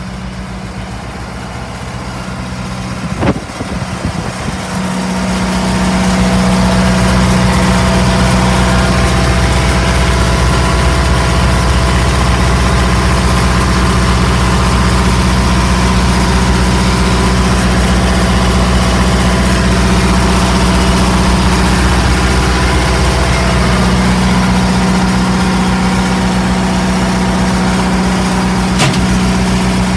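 An engine on a 1982 Ford fire and rescue truck running steadily with an even, low hum. It gets louder about five seconds in and then holds level. There is a single knock about three seconds in and another near the end.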